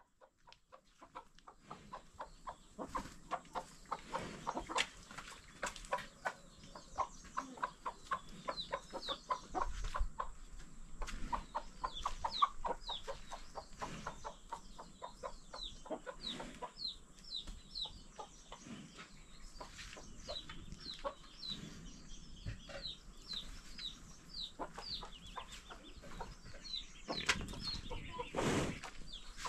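Chickens clucking in quick short notes, with high chirps mixed in.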